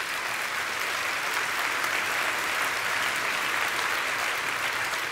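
Congregation applauding: steady, dense clapping that eases off slightly near the end.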